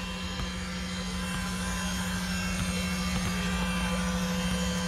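A radio-controlled model boat's motor running steadily with a low, even hum, growing a little louder as the boat comes close, over a low rumble.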